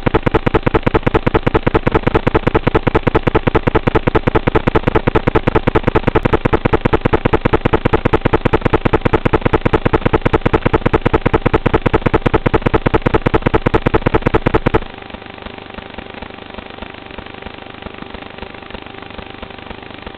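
Audio from an FPV quadcopter's onboard camera microphone: a loud, rapid pulsing buzz of regular clicks while the drone sits on the ground. About fifteen seconds in it cuts suddenly to a quieter, steady hum with a few held tones as the quad lifts off and flies.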